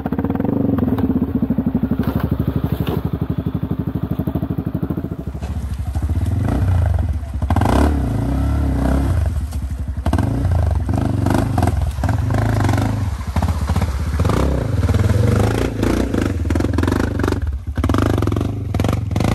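Yamaha WR 155 single-cylinder four-stroke trail bike engine running evenly at low revs for the first five seconds or so, then revving unevenly under load with repeated knocks and clatter as the bike crosses a rocky stream.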